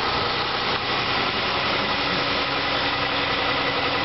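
Vehicle engines idling steadily, a continuous mechanical running noise with a constant faint hum.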